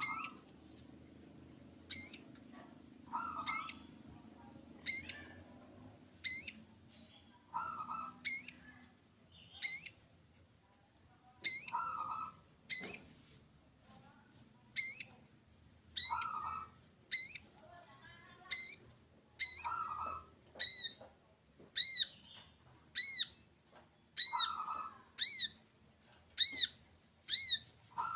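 Small birds calling: a sharp, high, upswept chirp repeated about once a second, a little faster near the end. A lower, shorter call comes in every four seconds or so.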